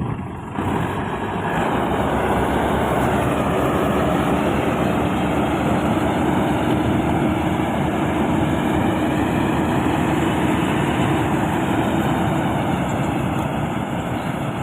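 Rice combine harvester running steadily at working speed, a loud, even machine noise with a steady hum, coming in sharply about half a second in.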